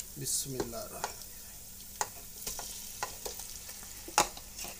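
Oil with onions and green chillies sizzling steadily in a frying pan as marinated chicken pieces are pushed off a plate into it with a wooden spoon. Several sharp clacks of the spoon against plate and pan, the loudest near the end.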